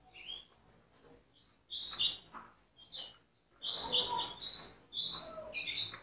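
Caged canaries chirping in short, sharp bursts of high notes, about five bursts.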